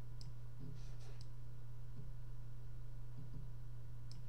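A few sharp computer mouse clicks, near the start, around a second in and near the end, as a design element is dragged and resized on screen, over a steady low electrical hum.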